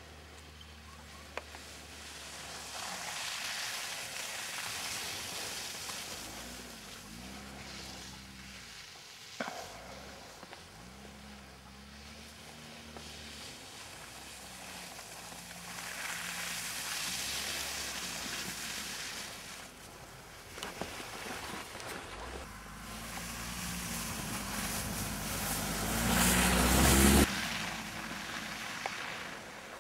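A compact SUV's engine revs up and down as the car slides through a snow course, its tyres churning and spraying snow with a rushing hiss. The sound swells several times as the car comes near, is loudest about 26 seconds in, then cuts off sharply.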